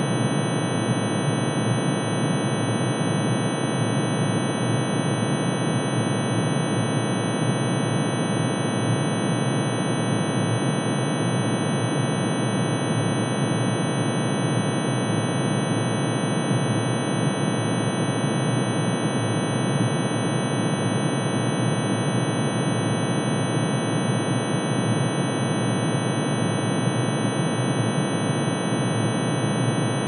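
Synthesized sound of argon's atomic emission spectrum: one sine wave for each spectral line, pitch-shifted into hearing range and added together. It is a steady, unchanging dense drone of many held tones that beat against each other, with a few thin high tones on top.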